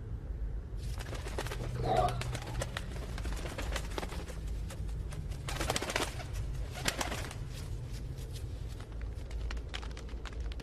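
Cooing, gurgling calls of a rat-like mutant monster over a steady low rumble, with scattered clicks and crackles starting about a second in.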